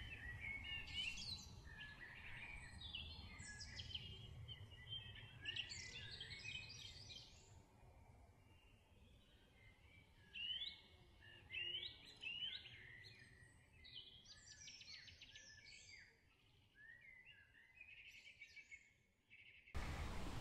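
Small birds singing and chirping faintly, a run of short trills and chirps, with a few louder calls near the middle.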